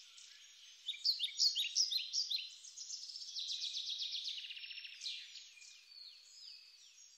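Woodland songbirds singing together, several at once: overlapping high chirps, rapid trills and quick down-slurred whistles, louder from about a second in.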